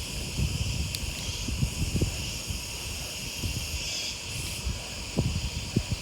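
Steady high-pitched insect chorus, with irregular low rumbles of wind buffeting the microphone while riding.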